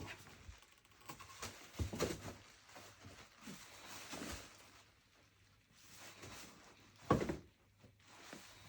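Cats scuffling over a sheet of bubble wrap: irregular rustling of the plastic and soft knocks, with one louder knock about seven seconds in.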